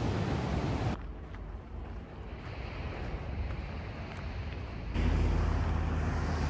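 Wind and breaking surf, cutting at about a second in to a quieter stretch of light breeze. At about five seconds a loud low rumble comes in as a car drives past close by on the road.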